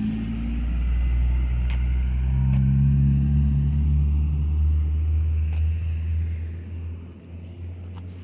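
Acura TSX with a Yonaka catback exhaust and PLM header driving past and away at low, steady revs, its exhaust giving a low drone. The note fades as the car moves off near the end.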